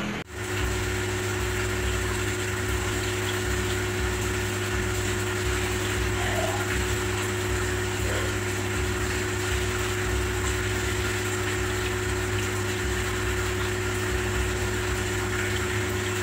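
Steady mechanical hum, like a motor running: a low drone with a fixed higher tone over an even hiss, cutting in abruptly just after the start and holding unchanged.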